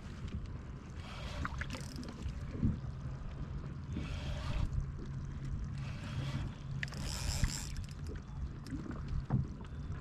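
Water lapping and sloshing against the hull of a kayak in a strong current, in short washes every second or two, over a steady low rumble of wind on the microphone.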